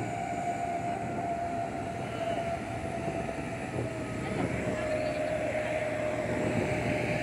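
Truck driving on a mountain road, heard from on board: engine and road noise with a steady whine that slowly drops a little in pitch.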